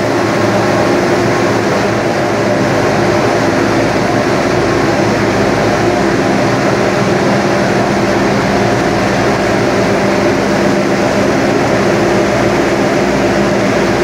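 Aluminium rod continuous casting and rolling line running: a loud, steady industrial drone with several constant hum tones and no breaks.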